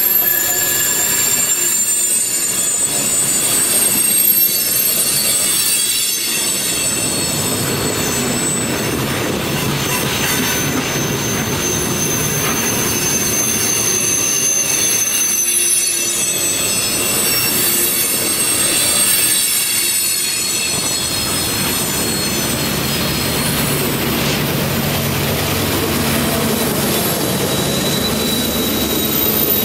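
Freight train of tank cars rolling past close by on a curve, the wheel flanges squealing against the rail in several steady high pitches. In the last few seconds a low diesel rumble builds as mid-train locomotives come by.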